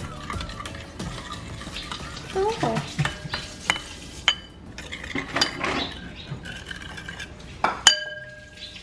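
A spoon stirring and scraping in a dish, with a string of sharp clinks against its side. One clink near the end rings on briefly.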